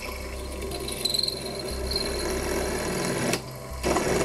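Small benchtop milling machine (Proxxon FF 230) running with a twist drill cutting a cross hole into a silver-steel shaft part, a steady motor hum with the grind of the cut. The sound dips briefly about three and a half seconds in, then comes back louder.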